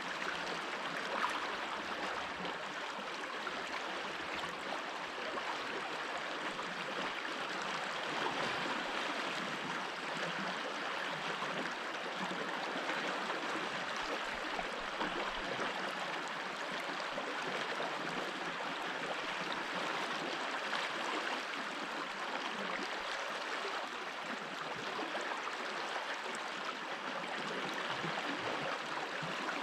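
Stream water rushing and gurgling over stones in a steady, even flow.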